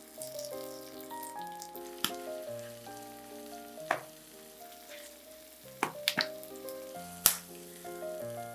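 Light background music over the faint sizzle of food frying in butter in a pan, with a few sharp clicks and knocks, the loudest about seven seconds in.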